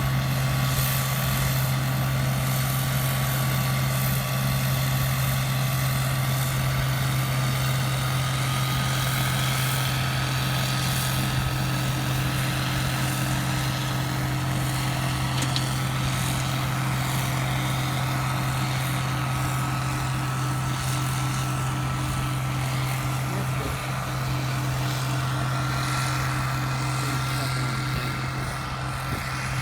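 A combine harvester running steadily under load, with a constant deep engine hum and a faint high whine that slowly rises in pitch.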